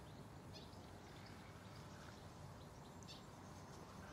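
Near silence of a calm waterside at dusk, with two faint, brief bird chirps, about half a second in and again about three seconds in.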